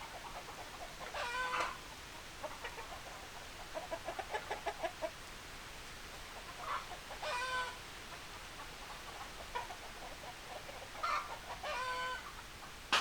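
Chickens calling: three short pitched calls about five seconds apart, and a quick run of clucks around four seconds in. A sharp click comes at the very end.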